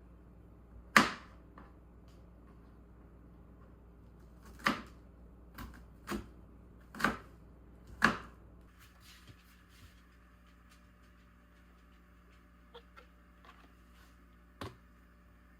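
A handful of sharp knocks and clatters at irregular times, the loudest about a second in and a cluster of four or five a few seconds later, over a low steady hum.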